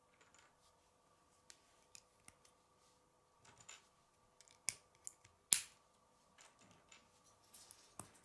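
Green plastic K'nex rods being pushed and snapped into a blue K'nex connector: a scatter of small plastic clicks, the loudest about five and a half seconds in.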